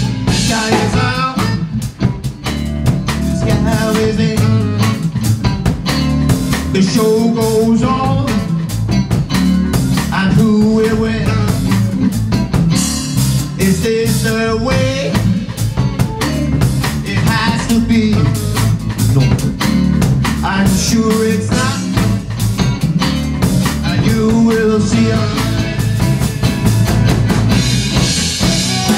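Live band playing a blues number: electric guitar, keyboard, drum kit and saxophone together, with a steady drum beat.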